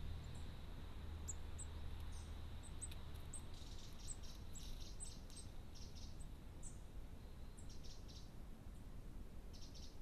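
Small garden birds chirping in the background: short, high chirps dotted throughout, with runs of quicker chirps from a few seconds in, over a faint steady high whine.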